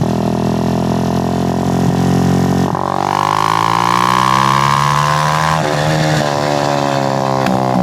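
Suzuki GN125's single-cylinder four-stroke engine running while the bike is ridden. Its note breaks briefly about three seconds in at a gear change, then climbs steadily as it accelerates, and drops again at another gear change after about five and a half seconds.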